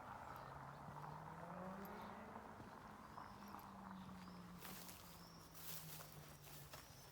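Faint outdoor ambience: a low, steady engine-like drone that rises slightly in pitch and then slowly sinks and fades, with a few faint bird chirps.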